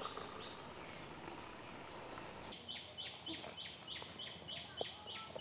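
Toddy pouring into a coconut-shell cup, a soft liquid hiss; about two and a half seconds in, a high-pitched animal call starts, repeating about three times a second.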